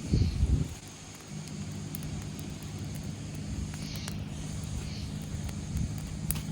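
A steady low engine drone. A loud low buffet, like wind hitting the microphone, comes in the first second, and there are a few faint scattered ticks.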